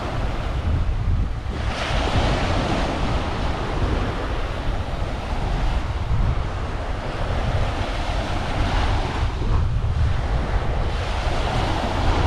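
Small ocean waves breaking and washing up a sandy shore, the hiss of the wash swelling about two seconds in and again near the end. Wind buffets the microphone with a steady low rumble.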